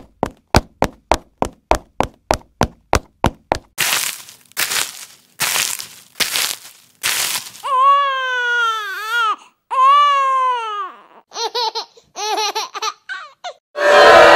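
A quick string of different sound effects: rapid sharp ticks at about four a second, then four hissing bursts, then two long wavering pitched cries, then short choppy pitched sounds, and a loud new sound breaking in just before the end.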